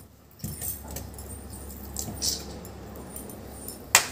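Boiled potato and raw banana pieces being scraped off a plate into a stainless steel bowl and mashed by hand, with a few sharp metallic clinks against the bowl near the end, over a steady low hum.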